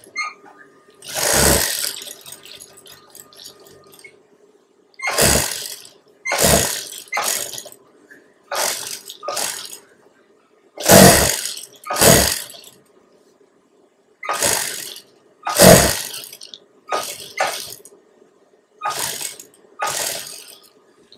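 Juki industrial sewing machine stitching in about fourteen short bursts, often in pairs, each about half a second long, with its motor humming steadily between them.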